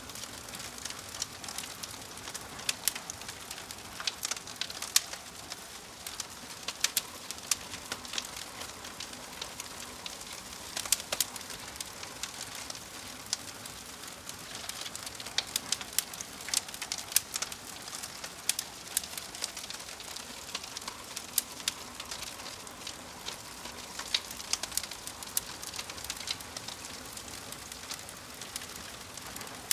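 Log fire crackling and popping, with irregular sharp snaps over a steady soft hiss.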